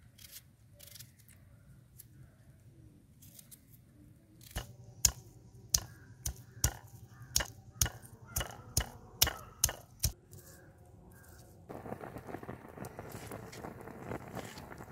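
A knife slicing through a red onion with soft cuts, then about a dozen sharp knocks, roughly two a second, of a hand stone pounding garlic cloves on a flat grinding stone. About two-thirds of the way in, gongura (sorrel) leaves start sizzling steadily as they fry in hot oil in a pan.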